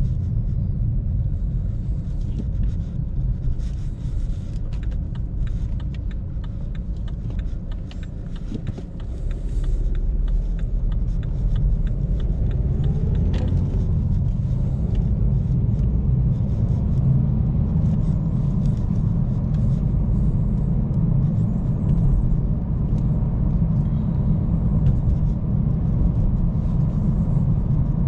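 Inside the cabin of a 2018 BMW 316d (F30) on the move: its four-cylinder turbodiesel and the road noise make a steady low rumble. It grows louder about ten seconds in, and scattered light ticks come through over the first dozen seconds.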